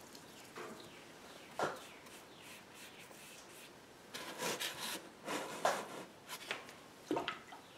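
Faint handling noises from a wooden painting board held in the hands: a light knock about a second and a half in, a run of short rubbing and scraping sounds in the middle, and another sharp knock near the end.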